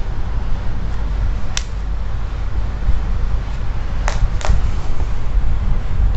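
A few sharp clicks and taps of tools being handled on a cutting table, a single one about a second and a half in and a close pair about four seconds in, over a steady low rumble.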